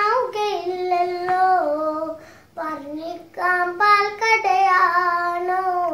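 A young girl singing a Malayalam song unaccompanied, holding long notes that glide between pitches, with a short breath about two seconds in.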